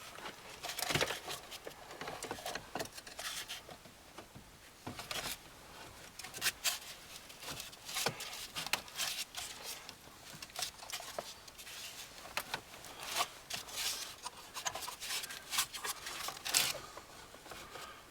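Irregular clicks, scrapes and rustles of hands working a car stereo and its wiring into a dashboard opening: plugs, harness and mounting parts being handled and pushed into place.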